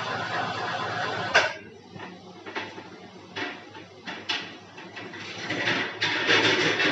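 A steady mechanical running noise that stops with a sharp clunk about a second and a half in. Scattered knocks and clatter follow, and a denser stretch of mechanical noise with clatter comes near the end.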